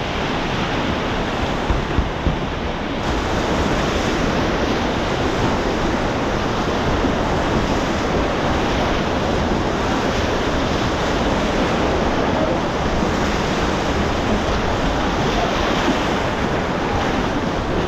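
Whitewater rapids rushing and churning right around a low-mounted action camera, a loud, steady noise of foaming river water.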